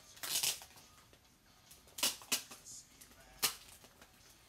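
Handling noise from a trading card being worked out of its paper and plastic holder: a few short rustles and taps, the sharpest about three and a half seconds in.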